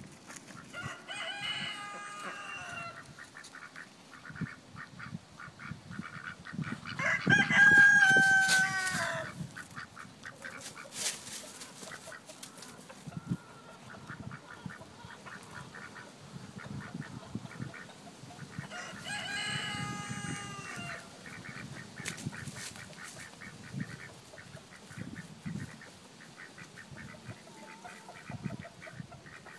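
Rooster crowing three times, each crow about two seconds long, the second, about seven seconds in, the loudest. Between the crows, faint quick clucking and small rustles.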